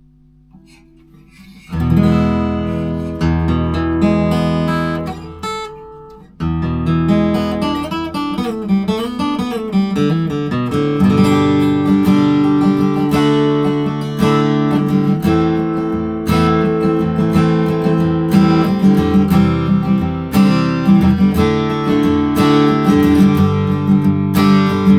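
Taylor GS Mini acoustic guitar being played: a chord strummed about two seconds in rings out and fades, then after a brief gap near six seconds the playing resumes as continuous strumming and picking.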